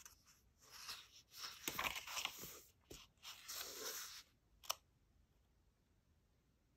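Pages of a small paperback guidebook being turned and pressed flat by hand: a few seconds of soft paper rustling and crinkling, then a single light tap.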